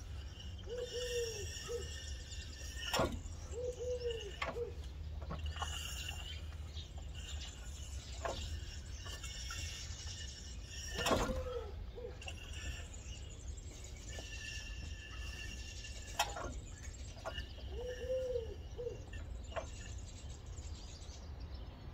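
Pigeons cooing in short groups of arched calls, with small birds chirping over a steady low hum. A few sharp clicks and knocks are scattered through, the loudest about 11 seconds in.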